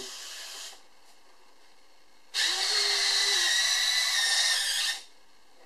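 Electric retractable landing gear of an FMS P-51B XL model warbird cycling: its small motors whir steadily for about two and a half seconds from about two seconds in, then cut off suddenly, after a brief fainter whir at the start.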